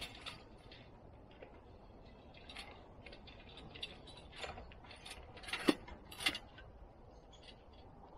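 A squirrel-proof bird feeder rattling and clicking as a squirrel clambers on it: irregular clicks and knocks, with two sharper knocks about five and a half and six seconds in.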